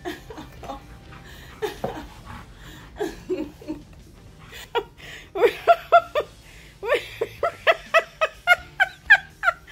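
A woman laughing, quietly at first, then in a quick run of loud bursts from about halfway through.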